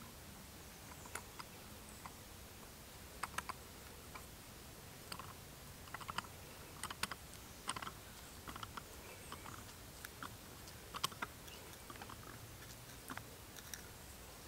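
Axe blade working into a small piece of wood held on a stump: irregular faint clicks and short scraping cuts, with one sharper knock about 11 seconds in.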